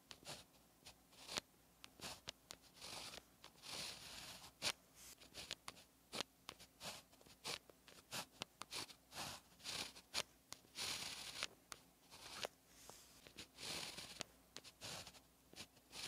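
A fine-tipped pen writing on paper: short scratchy pen strokes, one after another, with many light ticks as the tip touches down and lifts off between strokes.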